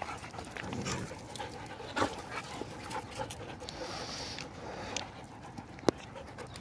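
A dog panting close by, among scattered small clicks, with one sharp click near the end.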